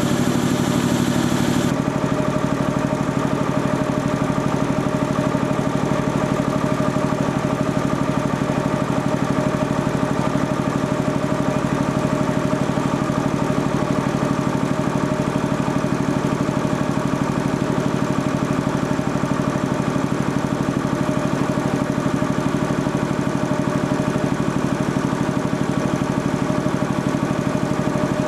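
Sperre HV2/200 two-stage reciprocating air compressor running steadily on test, with a fast, even pulsing beat. About two seconds in, a high hiss stops and the tone of the running changes, then it runs on evenly.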